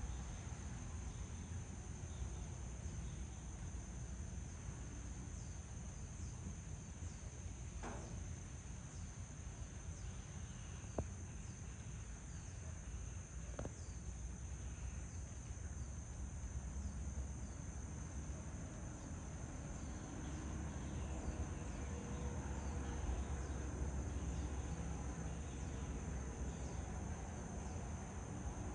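Insects, such as crickets, trilling steadily in one continuous high tone over a low rumble. There are three faint sharp clicks a few seconds apart, about a third of the way in.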